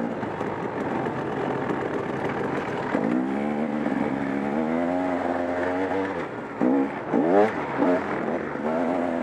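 KTM 300 XC-W 300 cc two-stroke dirt-bike engine under way. It holds a steady note for a few seconds, then is revved up and back down sharply several times in quick succession in the last third.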